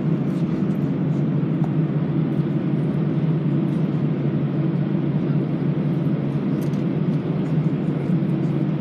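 Steady drone inside an Airbus A320 passenger cabin on the ground before takeoff: engines and air conditioning running, with faint scattered ticks.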